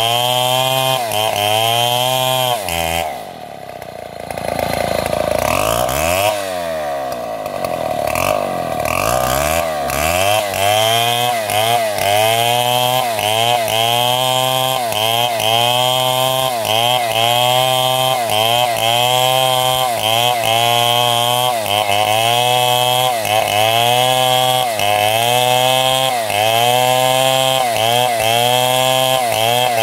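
A chainsaw-type saw engine runs hard, its pitch dipping and recovering about once a second as the saw takes load in the wood. About three seconds in, the revs fall briefly and swing up and down for several seconds. Then the regular loaded cutting rhythm resumes.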